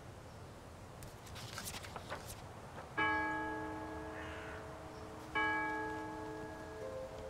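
A bell strikes twice, about two and a half seconds apart, and each stroke rings out and slowly fades.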